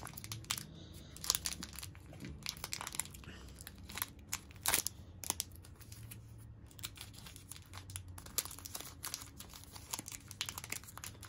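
Foil wrapper of a Cadbury Dairy Milk Silk chocolate bar crinkling and tearing as it is pulled open by hand, in many irregular crackles.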